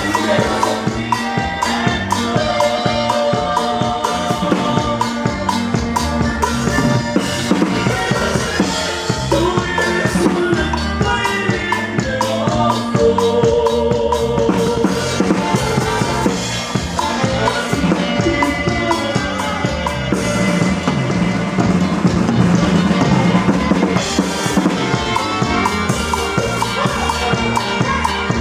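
Live band playing an instrumental passage, with no singing: a drum kit keeps a steady beat with bass drum and snare under sustained melody lines.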